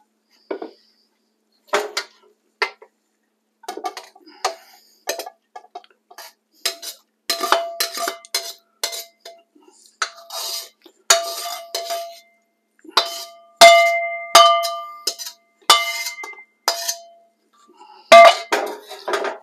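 A metal wok spatula and ladle clank and scrape against a steel wok while a stir fry is scooped out into a bowl. The knocks ring on briefly, and they come thicker and louder in the second half.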